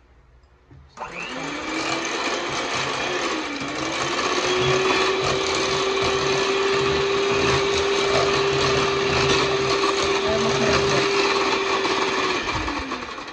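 Electric hand mixer switching on about a second in and running steadily, its wire beaters whipping chilled cream in a stainless steel bowl. The motor's whine glides up as it starts, holds one steady pitch, then falls and cuts off near the end as the mixer is switched off.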